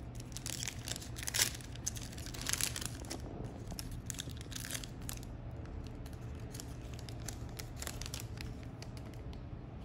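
Foil trading-card pack of 2021 Panini Prizm football being torn open and crinkled by hand, with sharp crackles that thin out after about five seconds as the cards are slid out.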